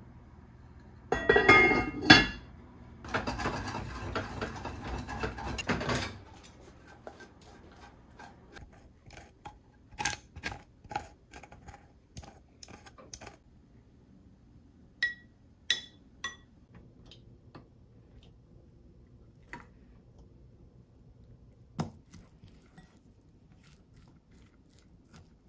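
Kitchen work with dishes and utensils clinking and knocking. A few seconds of louder scraping, rushing noise come near the start, followed by scattered light clinks and taps.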